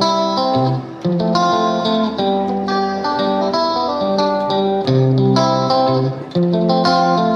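Intro theme music led by a plucked guitar, playing a rhythmic melody.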